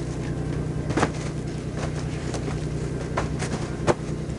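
Engine running with a steady low drone, with a few sharp knocks or clicks over it, the loudest about a second in and near the end.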